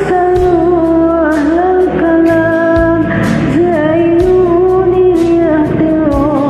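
Music: a sung Arabic song over a backing track, with a long, wavering melody line without clear words and a beat about twice a second.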